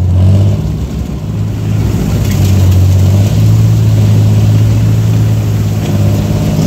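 Engine of an armoured vehicle running under load as it drives through mud, heard close up from on top of its hull; the engine note shifts up and down a few times.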